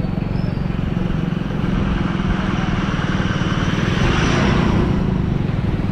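Motorcycle engine running steadily while riding on a highway, with road noise; a rushing noise swells briefly about four seconds in.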